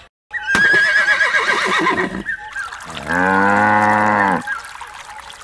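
A horse whinnies, its pitch wavering, for about a second and a half, then a cow moos in one long, steady call.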